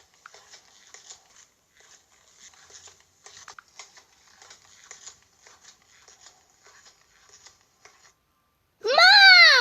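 Faint scattered rustling and light tapping of small things being handled. Near the end, a child's voice gives one loud drawn-out call that rises and then falls in pitch.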